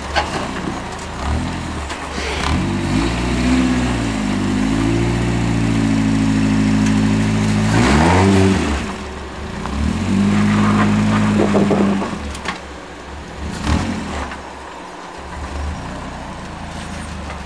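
Rock-crawler buggy's engine revving under load as it crawls over boulders. The pitch climbs and wavers for several seconds and peaks about eight seconds in, before it drops away. A second steady rev follows a couple of seconds later, then the engine settles back to a lower, quieter run.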